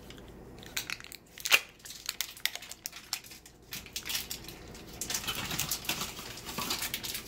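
Paper wrapper being peeled off a stick of butter by hand, crinkling and crackling. The crackling gets busier in the last couple of seconds, with one sharp click about one and a half seconds in.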